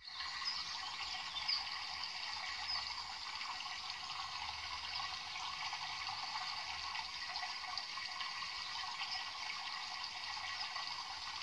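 Steady, even rushing water sound, thin and hissy, with no pitched tones.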